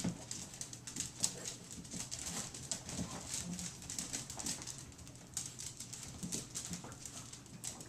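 A pack of small long-haired dogs milling and jostling on a tiled floor: many sharp claw clicks and scrabbling, with a few soft, short whimpers.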